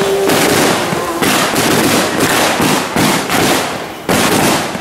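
Firecrackers going off in a dense, rapid crackle, loud, with fresh bursts starting about a second in and again near the end.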